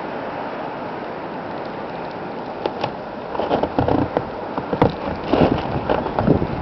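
Wind buffeting the microphone in a snowstorm: a steady rush at first, then uneven gusts that grow stronger from about halfway through.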